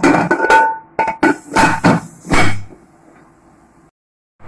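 Aluminium pressure cooker lid clanking against the cooker body as it is put on and closed: a quick run of sharp metallic knocks with a ringing tone, stopping about two and a half seconds in.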